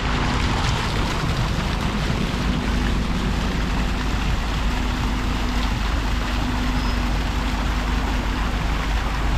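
Street fountain's water jets splashing steadily into a basin, a dense even hiss of falling water, with a low rumble and a steady low hum of traffic underneath.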